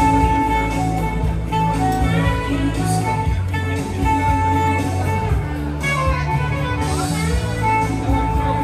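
Saxophone playing a melody of held notes over a backing track with a steady bass line.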